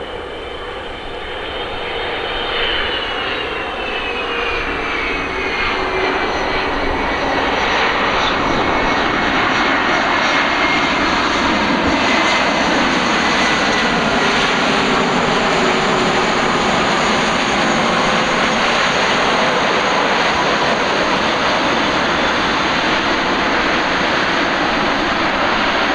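Airbus A330 jet engines on landing: a high whine drops in pitch through touchdown, then grows into a loud, steady roar as the airliner rolls out along the runway.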